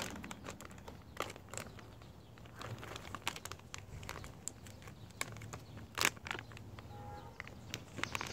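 Plastic soft-bait bag crinkling and crackling in the hands as it is worked open, with a sharper crackle about six seconds in.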